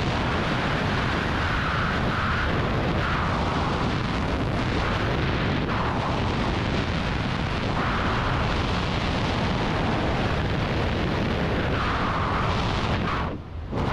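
Freefall wind rushing over a skydiver's helmet or body-mounted camera microphone: a loud, steady roar that swells and eases every second or two and dips briefly near the end.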